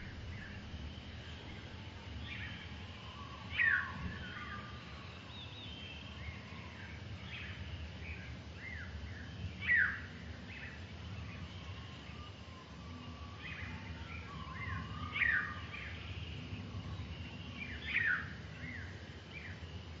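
Small garden birds chirping and calling, with a louder short call sliding down in pitch four times, over a steady low background rumble.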